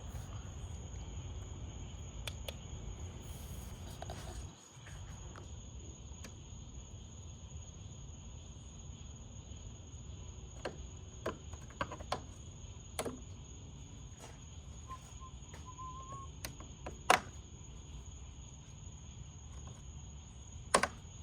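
Faint background: a steady low rumble under a thin, continuous high-pitched trill, with a few scattered light clicks and taps.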